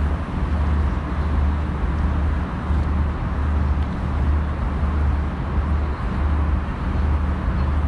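Steady road traffic noise: cars running along a wide city avenue, with a continuous low rumble.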